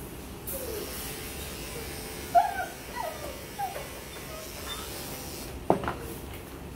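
Electric dog grooming clippers running steadily, then stopping with a click near the end. A dog gives a few short whines about midway.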